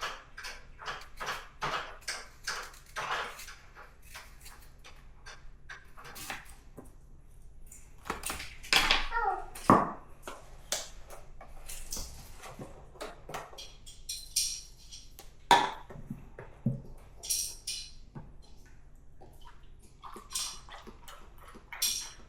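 Dishes and cutlery clinking at a meal table: many irregular light knocks and taps of metal and crockery, some ringing briefly.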